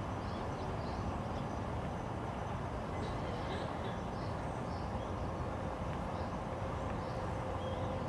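Steady low rumbling outdoor background noise with faint, short high chirps scattered through it. A faint steady hum comes in over the second half.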